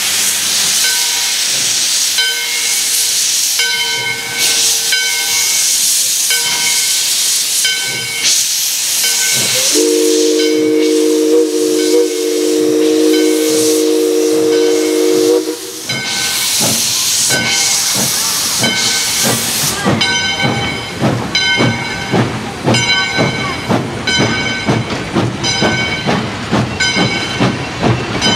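Valley Railroad No. 40, a 2-8-2 steam locomotive, starting away: steam hisses from its open cylinder cocks, draining condensate as it gets under way. About ten seconds in, its chime whistle sounds one long blast of about six seconds. Near the end the hiss stops and a regular beat takes over as the train rolls past.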